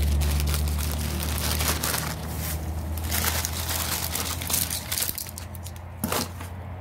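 Dry crunching and crinkling: footsteps through dry fallen leaves early on, then a plastic bag of charger wires being handled in a cardboard box, over a low rumble that fades after the first couple of seconds.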